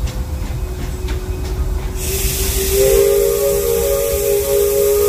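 A train rolls with a low rumble for about two seconds. Then a sudden rush of steam hiss and the steam whistle of Disneyland Railroad locomotive No. 3, the Fred Gurley, come in: a chord of several tones that sounds and is held to the end.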